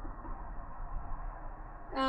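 Steady low hiss and hum of background room noise, with no distinct event.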